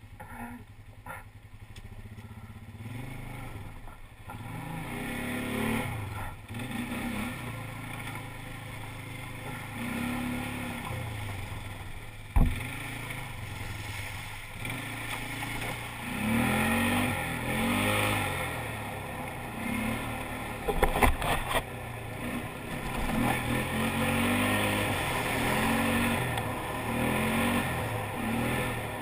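ATV engine revving up and down over and over while riding a muddy trail, with water splashing as it ploughs through a puddle partway through. A sharp knock comes about twelve seconds in and a short clatter of knocks around twenty-one seconds.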